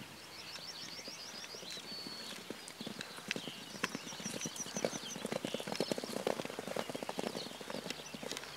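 Hoofbeats of several young fillies cantering and galloping on grass, a quick uneven patter of strokes that grows denser and louder about halfway through.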